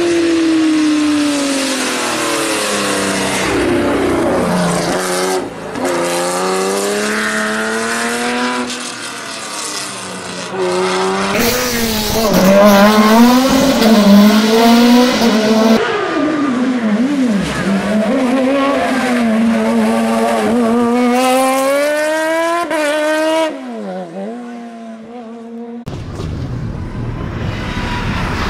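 Several hillclimb race cars accelerating hard uphill in a series of short cut-together clips. The engines rev up and drop back at each gear change.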